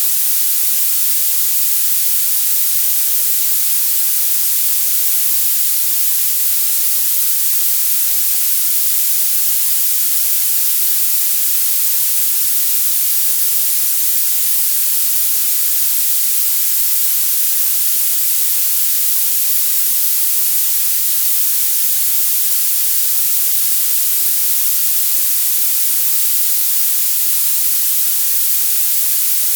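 Violet noise: steady synthetic hiss, concentrated in the highest frequencies with almost nothing in the lows.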